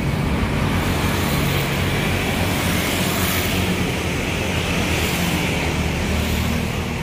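Steady low rumble of motor-vehicle engines, with an even hiss above it and no sudden sounds.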